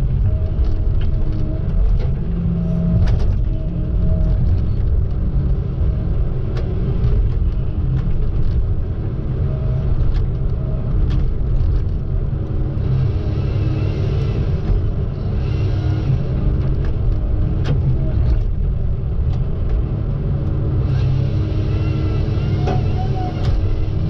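Diesel engine of a Tigercat T234 knuckleboom loader running under load, with hydraulics working the boom and grapple and frequent knocks of logs and grapple. A higher whine comes in twice; the second time, near the end, the loader's saw is cutting through logs.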